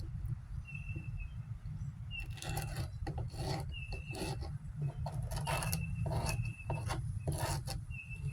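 Irregular scraping and rubbing strokes of a tool on a tabletop as firecracker powder and clay are scraped apart, over a steady low hum, with brief high squeaks between strokes.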